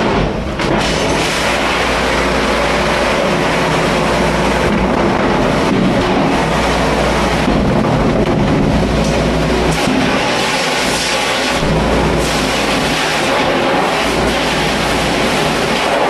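Loud, steady machine noise with a continuous low hum, typical of a commercial dish machine running in a kitchen dish room.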